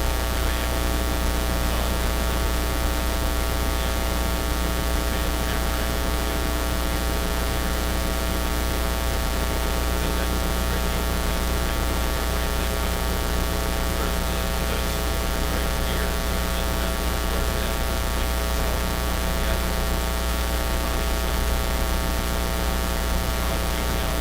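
Loud, steady electrical mains hum and buzz, with many overtones and a hiss behind it, unchanging in level: an audio fault in the livestream's sound feed.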